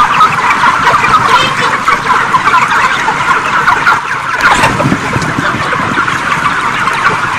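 A shed full of broiler chickens calling at once: a dense, steady chorus of cheeps and soft clucks from many birds.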